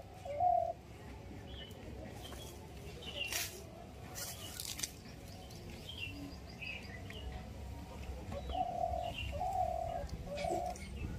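A dove cooing: a short coo right at the start and a run of three coos about eight and a half seconds in, with small birds chirping now and then. Two brief hissy rustles come around three and four and a half seconds in.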